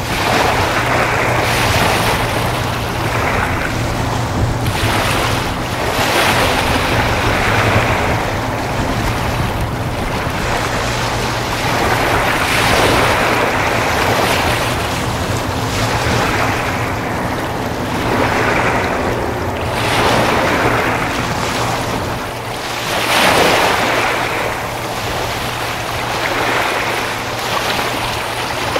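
Waves washing and splashing in repeated surges every two or three seconds, with wind buffeting the microphone. A steady low engine hum runs underneath.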